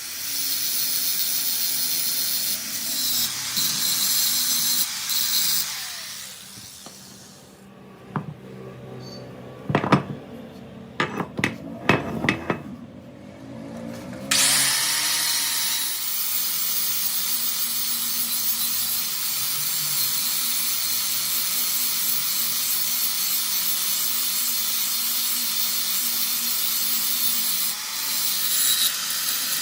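Electric arc welding: a steady crackling hiss for about six seconds, broken off by a pause with a run of sharp knocks, then a long steady run of the same crackling hiss.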